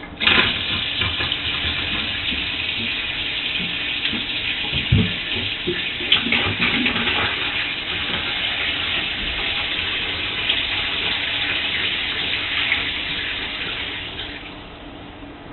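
Water running into a bathtub, a steady rush that starts abruptly and tapers off near the end.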